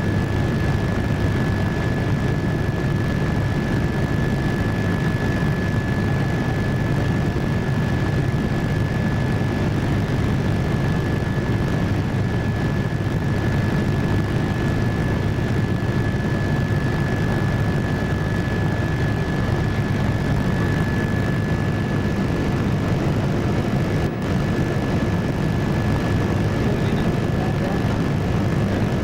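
Helicopter engine and rotor heard from inside the cabin in flight: a steady, even rumble with a thin high whine held on one note.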